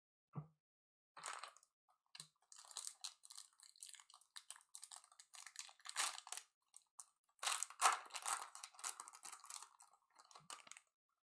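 Crinkling and crackling of a trading-card pack wrapper being torn open and the cards inside being handled, in quick irregular crackles that grow densest about three-quarters of the way through.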